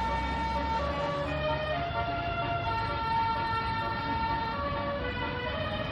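Basuri telolet bus horn playing a tune of long held notes that step between several pitches, over a low rumble.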